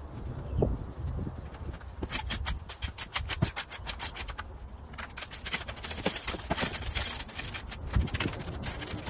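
Metal tines of a long-handled garden rake scraping and dragging through dry soil in repeated strokes, with many short gritty scratches.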